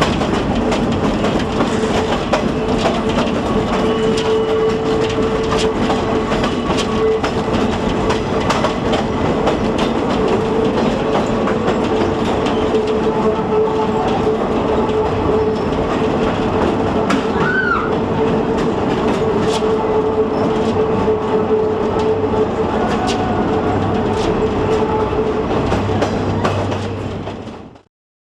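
Scenic railway passenger train rolling along the track: a steady rumble with wheels clicking over the rails and a short wheel squeal about two-thirds of the way through, fading out near the end.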